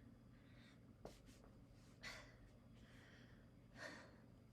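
A person breathing faintly, with two audible breaths, one about two seconds in and one near the end, over a low steady room hum. A light click about a second in.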